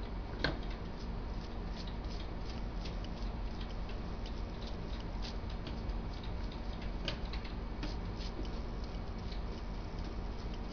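Brush dabbing acrylic paint onto a crumpled plastic sheet: soft, irregular taps and crinkles, a few a second.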